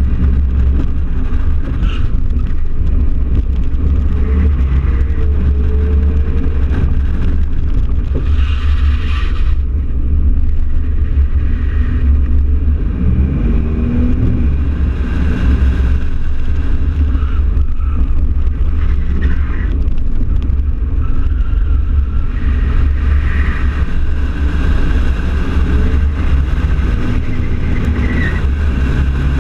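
Chevrolet S-10 Xtreme pickup driven through a cone course, heard from a camera mounted low beside the front wheel: a heavy, steady rumble of wind on the microphone mixed with engine and tyre noise.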